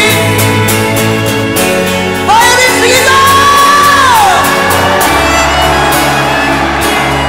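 Rock power ballad with singing over a full band. About two seconds in, a high sung line slides up, holds and then falls away.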